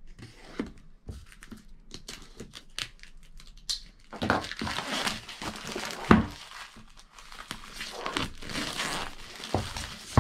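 Small pocket knife scratching and clicking as it cuts the seal of a cardboard product box. Then clear plastic wrapping crinkles and tears as it is pulled off the box, with a single knock about six seconds in.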